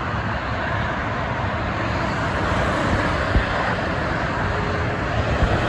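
Steady traffic noise from a busy multi-lane expressway: the tyres and engines of cars and trucks passing by. A short low thump stands out about three and a half seconds in.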